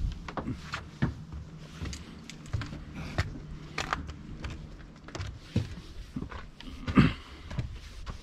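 Footsteps of hikers walking on a snowy trail: uneven steps every half second to a second, with one louder thump about seven seconds in.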